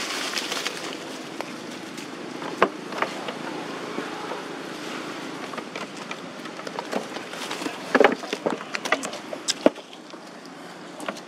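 Steady outdoor background hiss with scattered sharp taps and knocks, the loudest cluster about eight seconds in.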